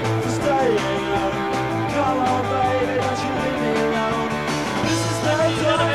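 Rock band playing: electric guitar, bass and drums, with a singing voice or lead guitar line gliding over a steady bass.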